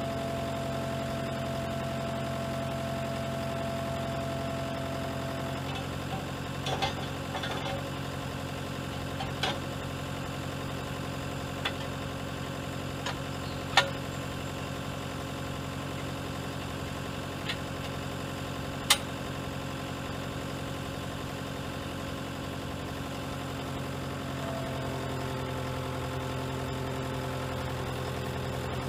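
CAT compact track loader's diesel engine idling steadily, with a handful of sharp metal clanks as the cement mixer bowl is fitted to the loader's auger drive. The engine's tone shifts slightly near the end.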